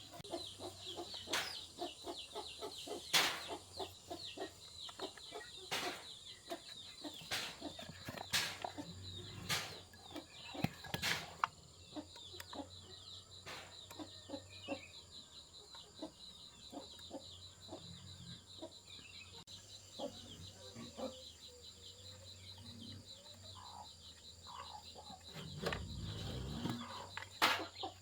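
Chickens clucking, with scattered sharp knocks throughout, the loudest about three seconds in, around eleven seconds and near the end.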